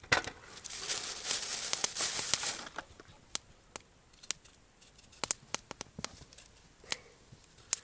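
Wood campfire crackling under a cooking pot, with irregular sharp pops and a hiss in the first couple of seconds.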